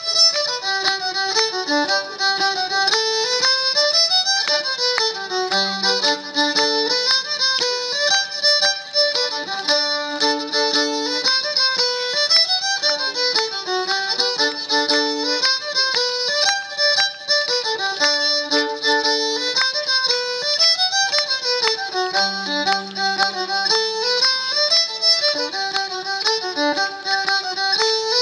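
Instrumental dance tune for maypole dancing: a single melody climbing and falling in short phrases, repeated about every eight seconds without a break.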